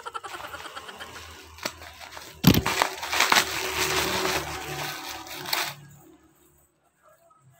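Plastic parcel wrapping crinkling and rustling as it is handled and pulled apart, with one loud thump about two and a half seconds in. The crinkling stops about six seconds in.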